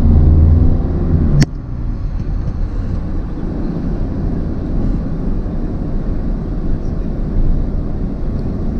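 Steady low rumble of a car driving on the road. About a second and a half in there is a sharp click, and the rumble then drops to a quieter, even level.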